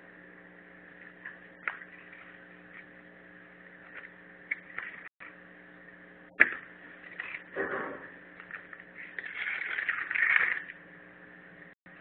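A hoe scraping and scooping sand and soil into a plastic bucket on paving stones, with a sharp knock a little past halfway and longer scrapes near the end, over a steady electrical hum.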